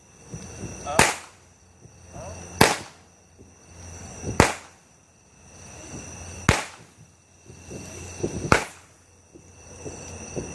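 A firework going off in a series of five sharp bangs, spaced about two seconds apart, with crickets chirring steadily in the background.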